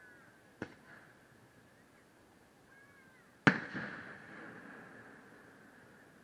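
Aerial firework shells bursting overhead: a sharp bang just over half a second in, then a much louder bang about three and a half seconds in, followed by a rolling echo that fades away over the next couple of seconds.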